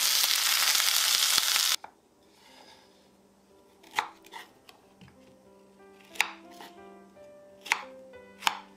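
Pieces of chicken tender and okra sizzling as they pan-fry, cutting off suddenly after about two seconds. Then a kitchen knife cuts okra on a wooden cutting board: several sharp knocks against the board over soft background music.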